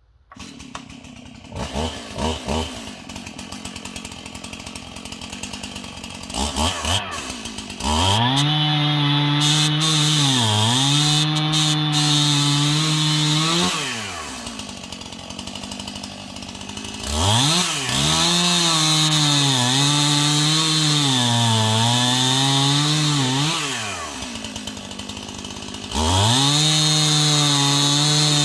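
Stihl chainsaw bucking a dead ash log. It idles with a few short revs, then makes three long full-throttle cuts, its pitch sagging and recovering as the chain loads up in the wood, and drops back to idle between cuts.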